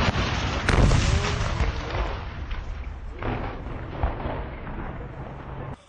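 Loud battlefield blasts: one already ringing out at the start, another just under a second in, and smaller ones about three and four seconds in, each trailing off in a rumbling echo. The sound cuts off abruptly near the end.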